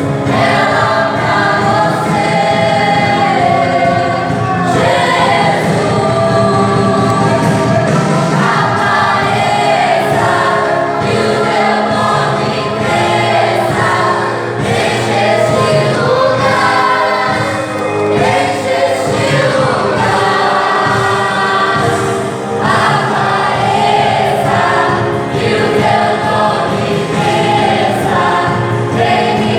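Church praise group singing a gospel worship song in chorus over instrumental backing.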